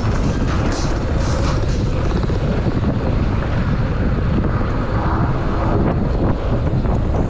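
Wind buffeting the microphone of a chest-mounted action camera on a mountain bike riding downhill, over the steady rumble of knobby tyres rolling on loose dry dirt, with small scattered rattles from the bike.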